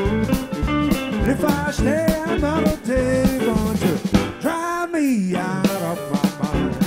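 Live blues band playing with drum kit, bass and guitar under a lead line that bends in pitch, with a long downward slide about five seconds in.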